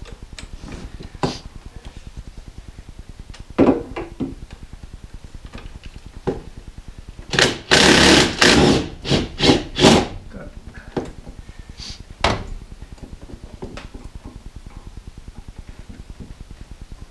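Ratchet and socket on an extension working bolts loose in a car's engine bay, with a run of rapid ratcheting a little before halfway through and scattered metal clinks and knocks of the tools before and after.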